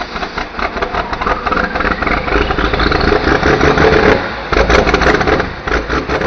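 A loud engine running hard, with a rising whine over the first few seconds. The sound falls away near the end.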